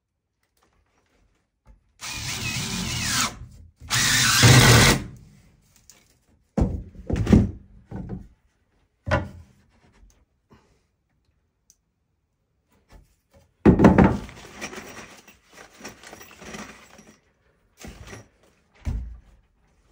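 Cordless DeWalt drill driving a screw into a wooden stud in two runs, its motor getting louder through the first run. These are followed by a series of knocks and thumps from wood and tools being handled, the sharpest about two-thirds of the way through.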